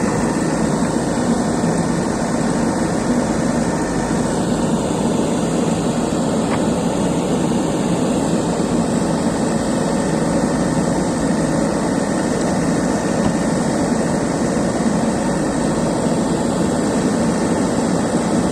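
Excavator's diesel engine running steadily, an even, unbroken drone.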